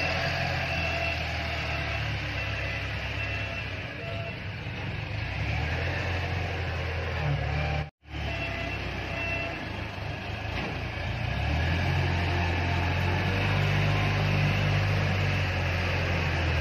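Heavy engine running steadily with a deep hum, likely landscaping work machinery, growing louder over the last few seconds. The sound breaks off for an instant near the middle.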